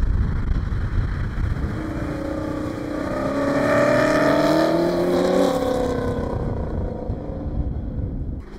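Off-road race car engine passing close under power, its pitch rising then dropping as it goes by, loudest about four seconds in and fading away near the end. A low rumble of wind on the microphone runs underneath.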